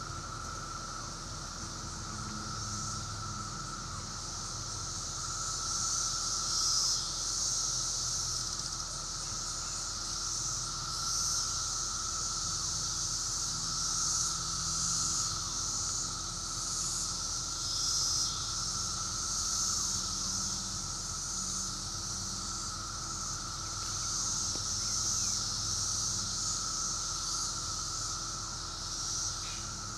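Insect chorus: a continuous high buzzing that swells and fades every few seconds, over a steady lower drone.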